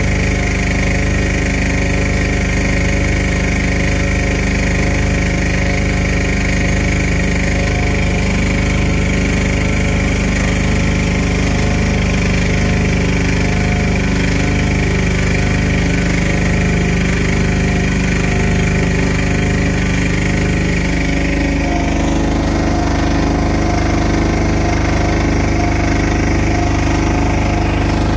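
Engine-driven paddle mixer running steadily under load, churning a batch of hemp hurd for hempcrete. About 21 seconds in its note changes and settles into a different steady hum.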